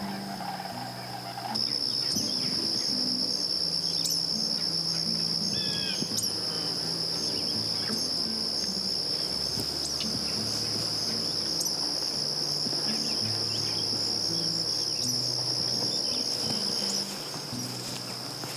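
Steady, high-pitched chorus of singing insects, like crickets, coming in about a second and a half in and dropping back near the end. A few brief bird chirps sound over it.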